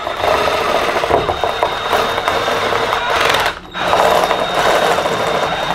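Cordless drill turning a step drill bit as it cuts a 7 mm hole through a metal sheet. It runs steadily for about three and a half seconds, stops briefly, then runs again for about two seconds.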